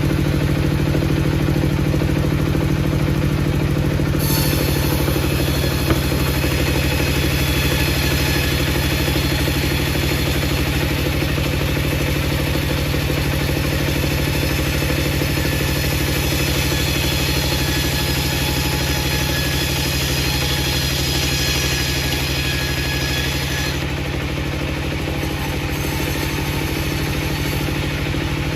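Engine-driven wood-processing machinery running steadily, with a low, even engine hum. About four seconds in a higher hissing whine joins it and holds until it stops about twenty-four seconds in.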